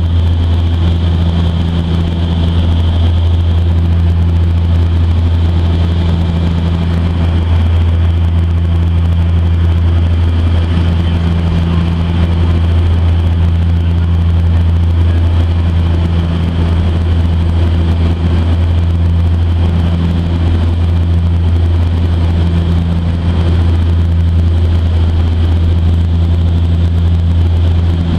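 Cabin noise of a de Havilland Canada DHC-6 Twin Otter in flight: the steady, loud drone of its two Pratt & Whitney Canada PT6A turboprop engines and propellers. A low hum within it swells and fades about every second and a half.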